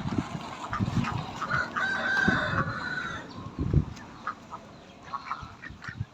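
A rooster crowing once, a long held call about a second and a half in, amid scattered low knocks.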